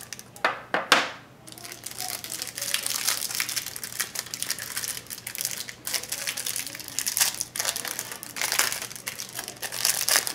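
Plastic wrapping crinkling and rustling as a pack of sports cards is opened and handled, with two louder sharp crackles about half a second and a second in.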